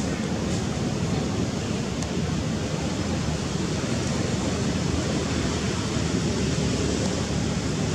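Steady wind noise on the microphone: a low, fluttering rumble with a hiss above it and no distinct events.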